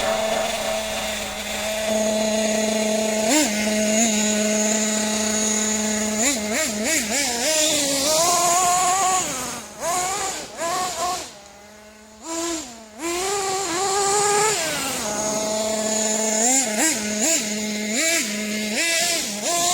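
Small nitro engine of a Kyosho Inferno Neo ST 3.0 RC truck idling steadily, then revving up and down in quick repeated blips. It drops away for a moment around the middle, then idles and blips again.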